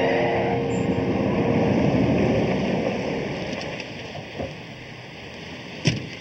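A car pulls into a parking space, its engine and tyres running and then fading away as it comes to a stop, under the last held note of background music. A car door slams once near the end.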